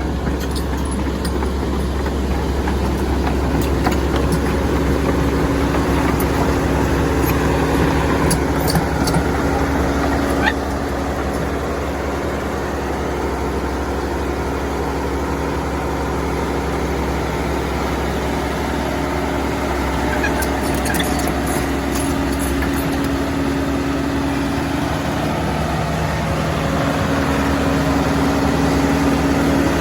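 Kobelco excavator's diesel engine running steadily, with scattered short metallic clicks and clanks.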